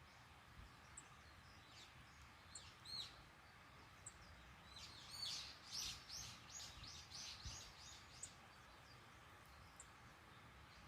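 Faint high chirps of small birds, scattered at first, then a quick run of them about five to eight seconds in, over a faint outdoor background.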